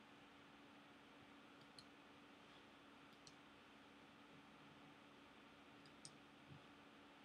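Near silence: faint room tone with a low steady hum, and a few faint, short clicks about two, three and six seconds in.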